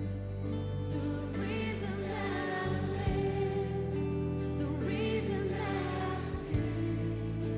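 Slow backing music: a song with a singing voice over sustained chords, the bass note changing a few times.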